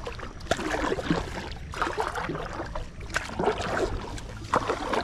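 Kayak paddle strokes in water from an inflatable packraft: four splashing, dripping surges, one about every second and a half.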